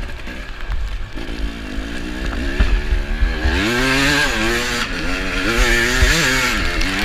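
Dirt bike engine revving up and down under throttle, its pitch rising and falling again and again; it gets louder and higher about three and a half seconds in.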